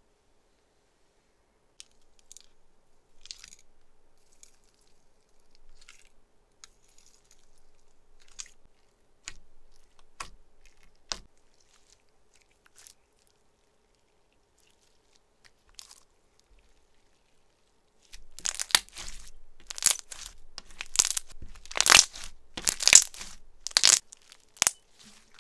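Icy slime with sugar beads being squeezed and pressed by hand, its crisp top layer crackling and crunching. Scattered soft crackles at first, then, about three-quarters of the way in, a dense run of much louder crunches.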